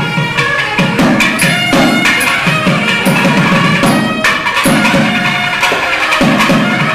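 Nadaswaram double-reed pipes playing a melody in raga Ramapriya, with thavil barrel-drum strokes beating out a rhythm beneath the held reed tones.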